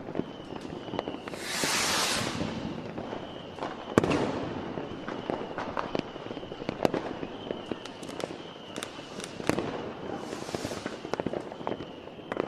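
New Year's Eve fireworks: a scattered run of firecracker and rocket bangs, near and far, the loudest about four seconds in. Two hissing swells rise and fade, one about two seconds in and one near the end.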